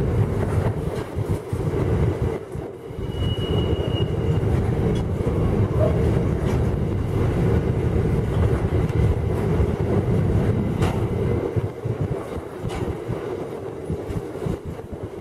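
Empty coal hopper wagons rolling past close by: a steady heavy rumble of wheels on rail with occasional sharp clicks, and a brief high wheel squeal about three seconds in.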